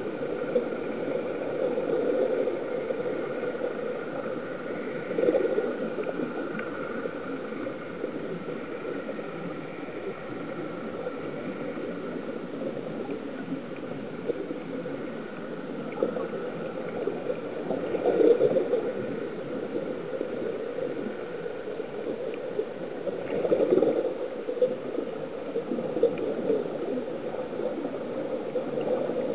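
Underwater ambience: a steady muffled rush with gurgling swells a few times, from air bubbling out of surface-fed sea-walking diving helmets.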